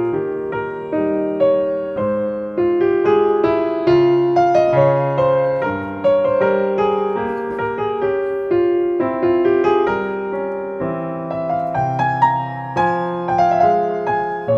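Background piano music: a gentle melody of single notes and chords, each struck and left to fade.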